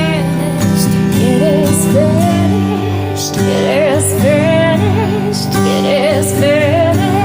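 Christian worship song: a woman singing sustained lines with vibrato over steady held chords of instrumental accompaniment.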